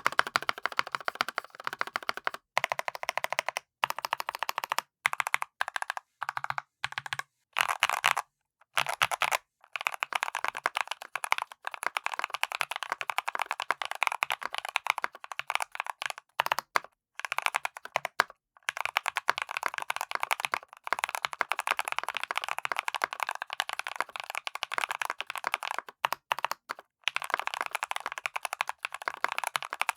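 Typing on a Keychron C2 Pro 8K mechanical keyboard: a fast, continuous stream of keystroke clacks, broken by several short pauses.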